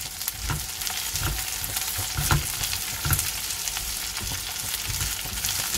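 Sliced green capsicum and onions sizzling in hot oil in a nonstick frying pan, with a steady hiss. A spatula scrapes and taps against the pan again and again as the vegetables are stirred.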